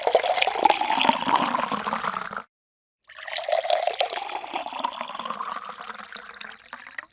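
Water being poured into a drinking glass, splashing with a ringing note that rises slightly as the glass fills. The pour stops abruptly about two and a half seconds in and starts again half a second later.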